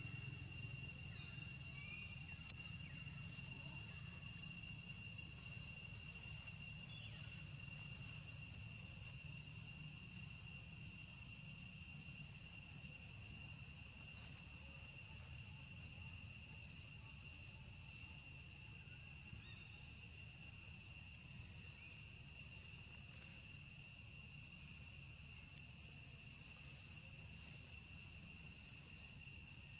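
Insects droning steadily in the forest: one continuous high-pitched whine, unbroken throughout, over a faint low background rumble.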